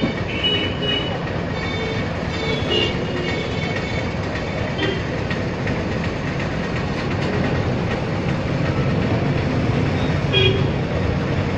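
Steady roar of a busy street-side frying stall, deep-frying oil sizzling under constant traffic noise, with short vehicle horn toots near the start and again near the end.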